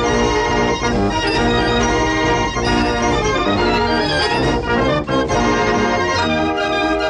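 Organ music playing a tune in held chords.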